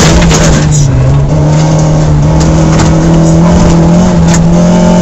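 Rally car engine running hard at high revs, heard from inside the car, with a brief dip in pitch about a second in. Gravel rumbles under the tyres.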